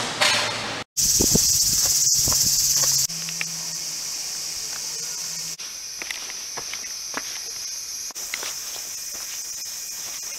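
Loud, steady high-pitched chorus of cicadas in a sunny subtropical forest, shifting abruptly in pitch and loudness a few times, with faint footsteps on the path underneath.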